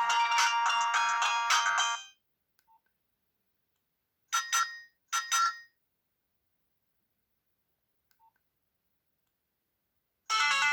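Nokia 6030 ringtones playing through the phone's speaker. A busy electronic melody cuts off about two seconds in, three short notes sound about four to five seconds in, and after a silent gap a new ringtone melody starts near the end.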